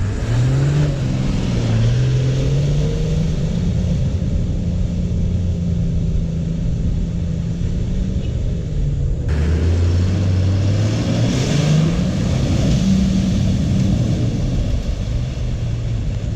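Toyota Land Cruiser engine revving under load through a deep mud hole. The revs climb about a second in, drop just past halfway, then rise again.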